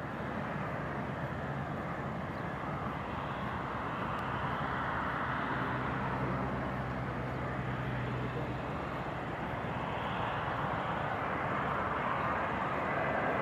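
Airbus A350-900's Rolls-Royce Trent XWB turbofan engines heard from the ground as the airliner comes in on final approach to land: a steady jet rumble and hiss that grows slightly louder as the aircraft nears.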